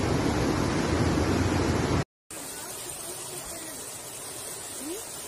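Floodwater rushing hard in a loud, churning torrent that cuts off suddenly about two seconds in. After a brief gap, a quieter, steady rush of floodwater flowing down a street.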